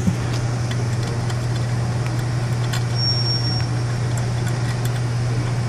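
A steady low hum inside the car, with a few light clicks and taps from hands working at the amplifier's mounting bracket and wiring under the seat. A brief high thin whine comes about three seconds in.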